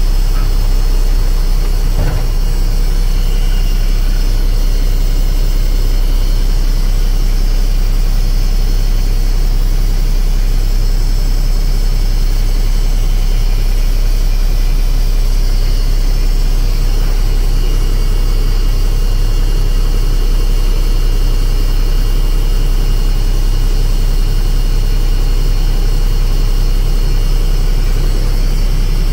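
Heavy truck's Mack 12-litre diesel engine idling steadily, with a strong low rumble that holds even throughout.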